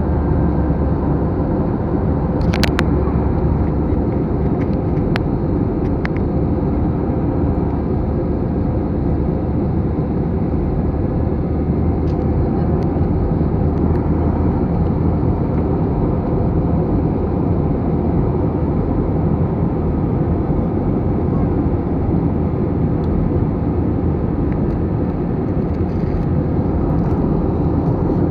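Steady engine and airflow noise inside the cabin of an Airbus A321 in flight, heavy and low. There are a few short clicks about two and a half seconds in and again around five to six seconds in.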